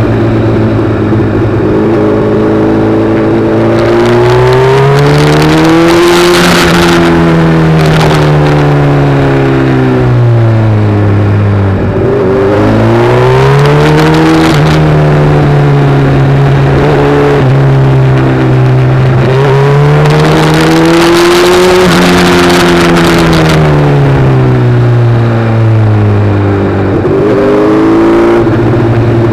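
Vehicle engine heard from on board, revving up and easing off again and again over the stretch, several rises and falls in pitch, as it accelerates and slows along a winding road. A rushing noise swells each time the revs climb.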